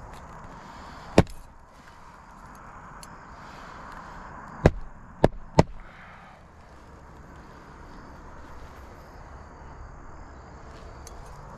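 Roofing hatchet driving nails into a replacement asphalt shingle: four sharp blows, one about a second in and three in quick succession around the middle.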